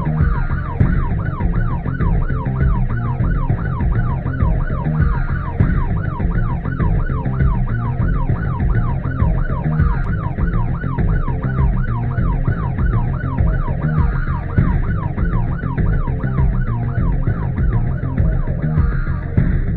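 Emergency-vehicle siren on a fast yelp, its pitch sweeping up and down about four times a second, over background music with a heavy low beat; the siren cuts off near the end.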